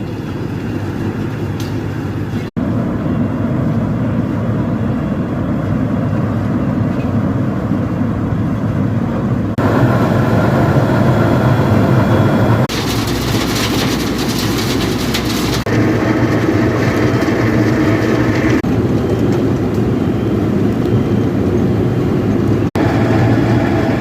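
Heavy machine noise from a one-metre road planer working: engine and cutting drum running steadily. The sound shifts abruptly every few seconds across several joined clips.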